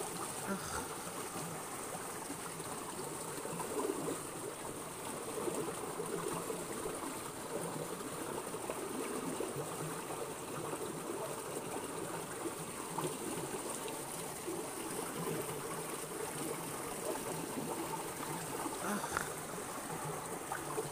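Shallow rocky stream trickling and rushing steadily, with a couple of faint knocks, one near the start and one near the end.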